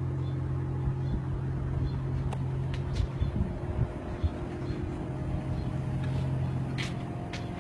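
Samsung DVM S Eco 36,000 BTU heat-pump condensing unit running: a steady low hum with a few faint ticks.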